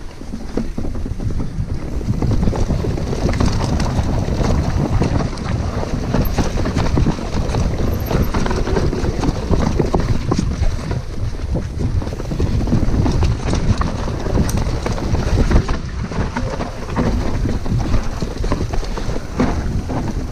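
Mountain bike descending a dirt forest trail: steady wind rumble on the microphone, with the tyres crunching over the dirt and the bike rattling and knocking over bumps throughout.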